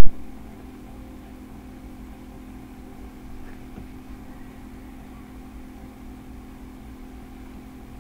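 A loud click right at the start, then a steady, muffled low drone from a film's underwater scene, played on a TV and picked up by the recording device's microphone.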